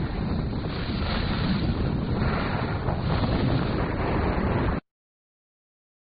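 Wind buffeting a moving camera's microphone: a loud, rushing, rumbling noise heavy in the low end, with no tones in it. It cuts off abruptly near the end into silence.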